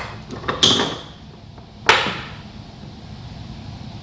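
Hand tools being handled while working on heavy battery cable: a sharp metallic clink that rings briefly about half a second in, and a second knock just before two seconds in.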